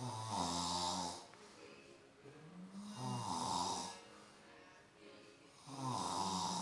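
A sleeping man snoring: three loud snores, about three seconds apart.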